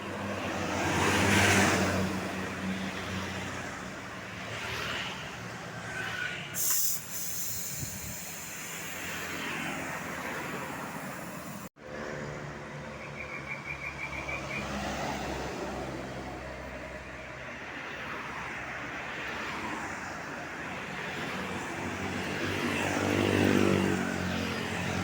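Road traffic with large vehicles, such as tour buses, driving past one after another, each swelling and fading as it goes by. A short hiss comes about seven seconds in. Near the end a vehicle's pitched engine note rises and falls as it passes.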